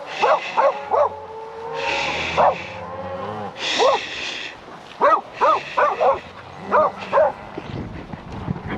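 Herding dogs barking in short, sharp bursts, about a dozen barks in clusters, while cattle bawl in longer, low calls between them. The barking stops about seven seconds in.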